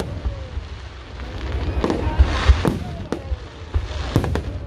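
Aerial firework shells bursting: sharp bangs about two seconds in and again near four seconds, with crackling between them over a steady low rumble.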